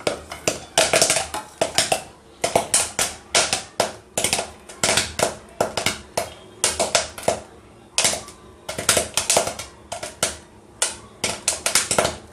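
Popcorn kernels popping in hot oil in a steel pot: a quick, irregular run of sharp pops, several a second, coming in clusters.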